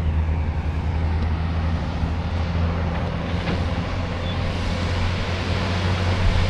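Heavy diesel earthmoving equipment running with a steady low engine hum and a constant rumble of noise.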